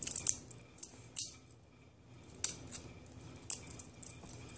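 Balisong comb flipped slowly through a trick: its handles swing and clack against each other and the comb in about half a dozen sharp, irregularly spaced clicks.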